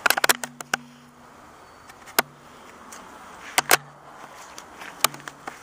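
Sharp knocks and clicks against an aluminum jon boat in short clusters, the loudest burst in the first second, with another about 2 s in, a pair near 3.5 s and one near 5 s. Several are followed by a brief low hum.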